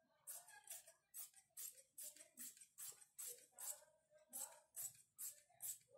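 Large tailor's shears snipping through trouser cloth in a steady run of cuts, about two to three a second.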